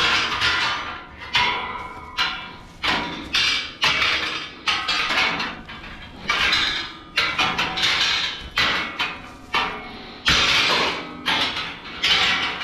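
A run of sharp, clanking hits, each dying away with a brief ring, irregularly spaced at just under two a second.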